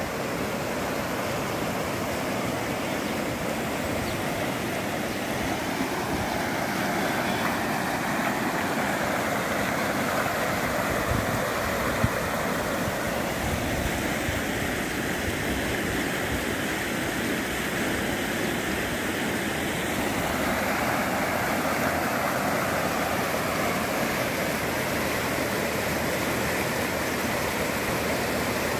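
Floodwater from an overflowing lake rushing steadily, with one brief click about twelve seconds in.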